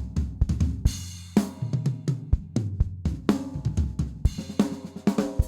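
Drum kit playing a gospel groove: a busy pattern of kick, snare and hi-hat strokes with cymbal crashes, built around a four-note sixteenth-note figure.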